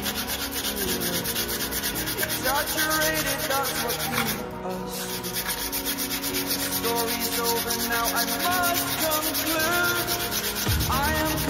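Sandpaper rubbed back and forth over a scratched, damaged motorcycle body panel, a steady scratchy sanding sound that runs throughout, to smooth the damage before spray painting.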